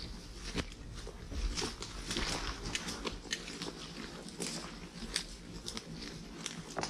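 Irregular crunching and clicking footsteps on a rocky trail.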